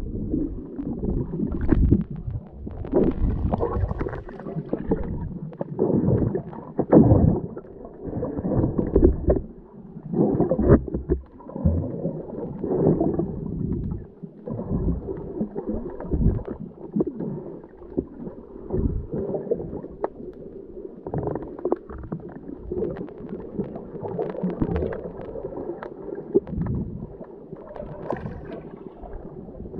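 Muffled water sloshing and gurgling, surging and easing irregularly, heard through a camera held in the water.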